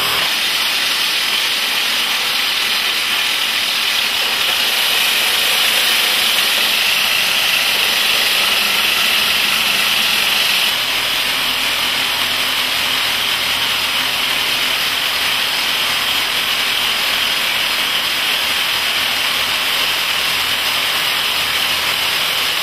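Hydraulic rock drills on a drilling jumbo boring blast holes into tunnel rock, here drilling the cut holes, as a steady loud noise. It drops slightly in level about eleven seconds in.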